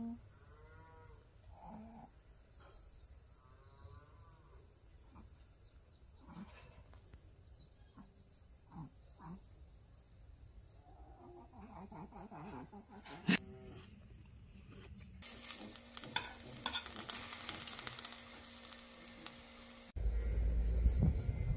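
Insects chirring steadily in the evening, with faint scattered chirps. About fifteen seconds in a crackling sizzle starts, and near the end it gives way to a louder, lower sizzling.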